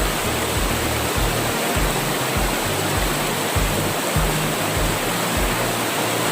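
Steady rush of flowing river water, with background music and its low, repeating bass beat laid under it.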